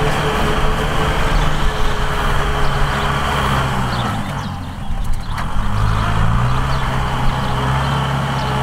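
Kubota M6040SU tractor's four-cylinder diesel engine running steadily under load while its rear rotary tiller churns through soil. The sound dips briefly about halfway through, then the engine settles back into a steady note.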